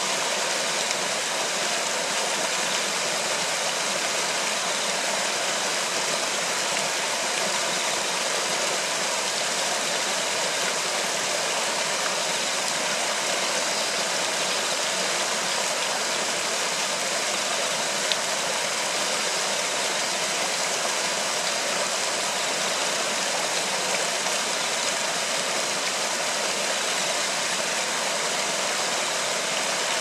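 Steady, even rushing of flowing river water, with one brief click partway through.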